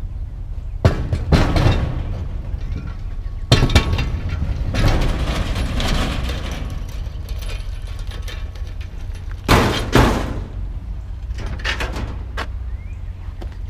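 Scrap metal being set down and shifted in a pickup truck bed: a series of loud clanks and bangs, the biggest about three and a half seconds in and again near ten seconds, over a steady low rumble.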